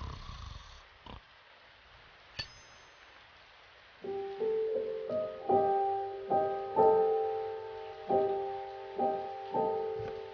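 Background score: after a few quiet seconds broken by a brief high ding, a gentle piano melody of single struck notes comes in about four seconds in and carries on.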